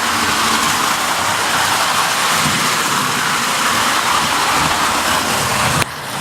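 A 1920s Hafner wind-up toy train running under its clockwork spring motor: a loud, steady whirring rattle of gears and wheels on the track. The sound drops suddenly shortly before the end.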